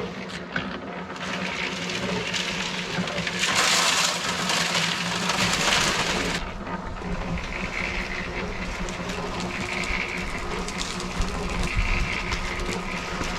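Electric concrete mixer running with a steady hum and a churning rumble from the drum. For about three seconds in the middle a louder hissing rush rides over it.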